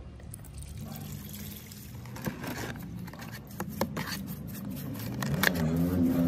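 A brush scrubbing a rusty bevel-gear spindle in a tub of liquid: splashing and sloshing, with a few sharp knocks of the brush against the metal. Near the end a low droning tone with overtones comes in.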